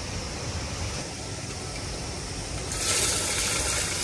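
Fish sizzling in hot oil over a wood fire: a hiss that starts suddenly about three seconds in and keeps going, over a low steady rumble.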